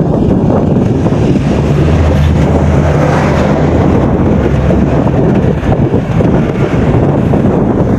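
Loud wind rushing over the microphone of a moving rider in traffic. A vehicle engine drones low underneath for a few seconds in the middle.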